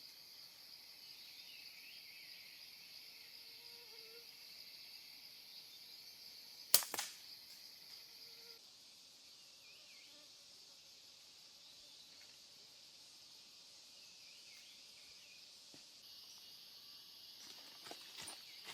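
Steady high buzz of forest insects, broken about seven seconds in by one sharp crack of a hunting shot, with a softer knock right after it. A few light clicks and rustles near the end.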